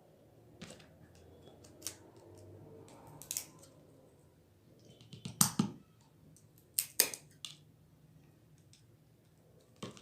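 Small fishing-reel parts and a small hand tool being handled: a handful of sharp clicks and short scrapes at irregular intervals, the loudest about five and a half and seven seconds in.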